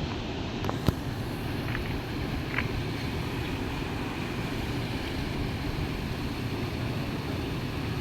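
Steady low rumbling background noise, with one sharp click about a second in.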